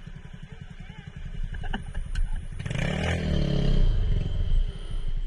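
Yamaha motor scooter's small engine idling with a steady low pulse, a few light clicks around two seconds in, and a louder engine swell about three seconds in that falls in pitch as it fades.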